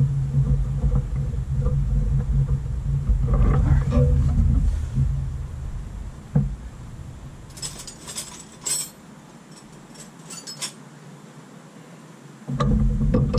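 A low rumble for about the first half, then metal hand tools clinking in two short clusters.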